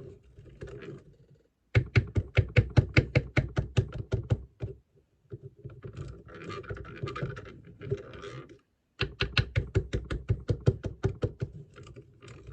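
A stirring stick knocking rapidly against the side of a mixing container as slime is stirred hard and lumps are crushed: two runs of quick, even taps, about seven a second, with a scratchier stirring stretch between them.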